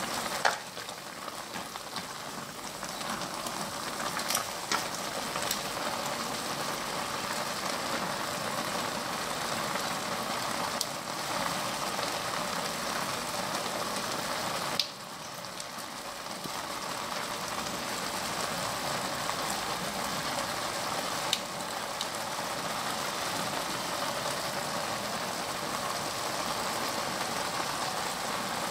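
Jjapagetti black bean noodles and sauce sizzling steadily in a frying pan while being stirred with wooden chopsticks, with a few brief sharp clicks.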